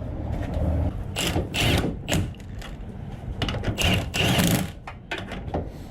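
Exhaust clamp bolts being tightened with a tool: short spells of quick mechanical rattling, about a second in and again around four seconds.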